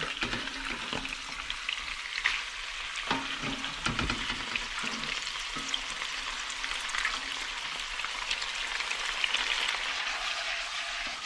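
Onions, chili and olive oil sizzling steadily in a frying pan as cooked penne is spooned in and stirred, with scattered knocks of the slotted spoon against the pan.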